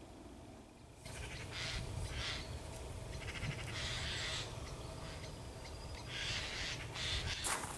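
Rooks cawing, several harsh calls spaced a second or two apart, over wind buffeting the microphone. Footsteps start near the end.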